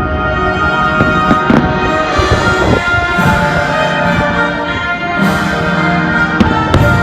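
Orchestral fireworks-show soundtrack playing over fireworks going off, with sharp bangs about one and a half seconds in and twice near the end.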